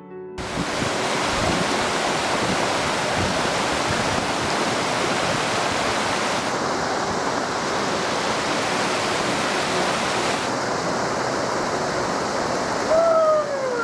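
Mountain creek rushing and cascading over boulders: a steady, loud wash of water. Near the end a short whistle falls in pitch above it.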